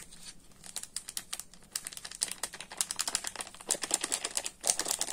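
A small packet of baking powder crinkling in the hand as it is squeezed and shaken out, in quick irregular crackles and clicks.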